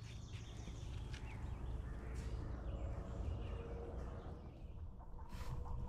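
Low rumble of wind on the microphone, with faint bird calls over it.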